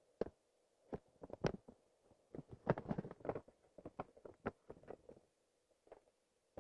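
Paper gift bag and tissue paper rustling and crinkling as the bag is opened and the tissue pulled out. It comes in a run of irregular crackles, busiest in the middle and tapering off after about five seconds.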